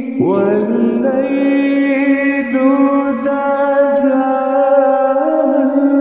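Arabic nasheed used as a ringtone: a voice singing long, drawn-out held notes over a steady low drone, a new phrase entering just after the start.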